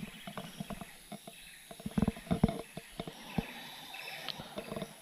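Irregular light knocks and clicks from handling a spinning rod and reel in an aluminium boat, with a few louder knocks about two seconds in.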